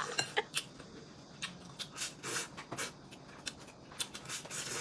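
A man eating fried noodles with chopsticks: short, irregular mouth noises of slurping and chewing, a few of them stronger near the end.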